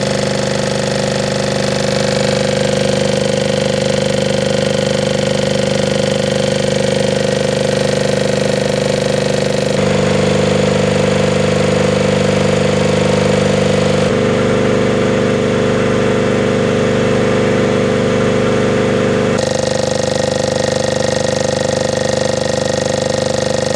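Tanabe H-64 reciprocating marine air compressor running steadily with a loud, even mechanical hum and clatter; its tone shifts abruptly three times.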